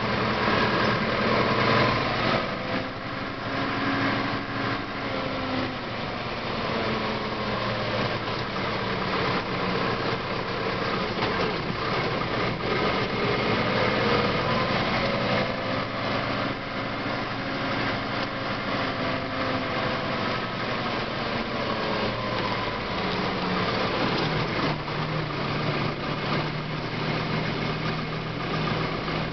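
Deutz DX 4.70 Turbo tractor's air-cooled turbo diesel engine running while driving on the road, heard from inside the cab. The engine note rises and falls gently a few times as speed changes.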